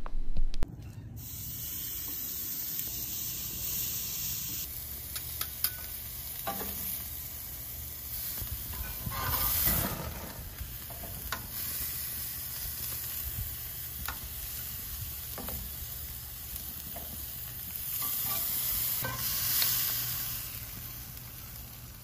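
Steaks sizzling on a hot barbecue grill grate: a steady frying hiss that swells louder twice, with a few light clicks of the stainless steel tongs against the grate.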